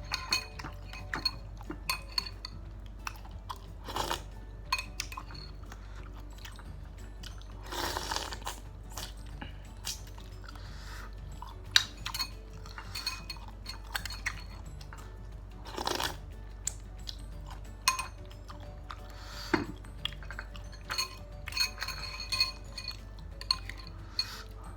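Close-up eating of chicken noodles and meatballs: chewing, with frequent sharp clinks of a spoon and utensils against the bowl and a few longer noisy bursts.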